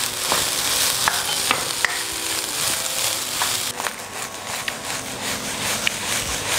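Fried rice sizzling in a hot nonstick wok over a gas flame while it is stirred and tossed. A steady hiss runs throughout, with scattered clicks and scrapes of the spatula against the pan.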